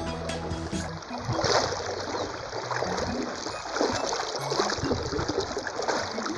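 A shallow river current flowing steadily, with a dense rush of running and splashing water. Background music cuts off about a second in, and the water takes over.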